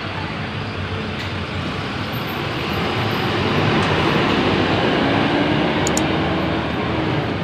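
A bus driving past at close range, its engine and tyre noise swelling to a peak about halfway through and easing slightly near the end.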